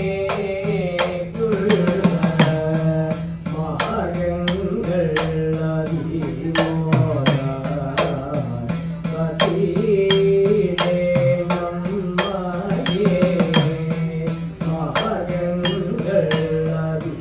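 Sopana sangeetham: Kerala temple singing with ornamented, gliding melodic lines, accompanied by rapid strokes on an idakka hourglass drum over a steady low drone.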